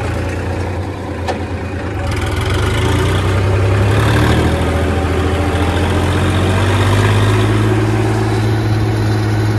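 Massey Ferguson 9500 tractor's diesel engine running steadily, picking up revs and growing louder about two to four seconds in, then holding steady.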